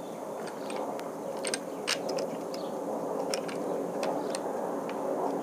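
A handful of small, sharp, irregular clicks and scrapes as a Smith & Wesson M&P40 Compact pistol is handled while its extremely stiff takedown lever is worked down, over a steady background hum.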